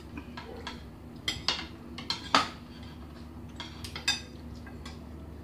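Spoons and forks clinking and scraping on plates as several people eat, a string of scattered clinks with the sharpest about one and a half, two and a half and four seconds in, over a faint steady hum.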